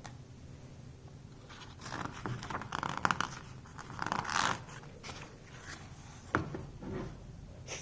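Soft paper rustling from a picture book's page being handled and turned, with a single light tap about six seconds in.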